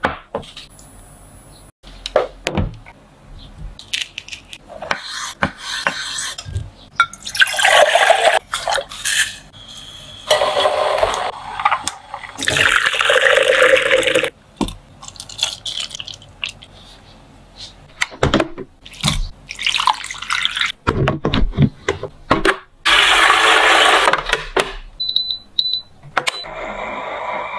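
Drink-making sounds: liquid poured in short runs again and again, with clicks and knocks of cups and utensils. Near the end come a few short high beeps as an appliance's touch panel is pressed.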